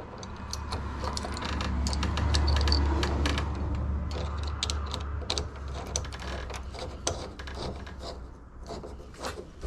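Small metal clicks and rattles of a door lock's cylinder and tailpiece being worked by hand, with a low rumble through the first half.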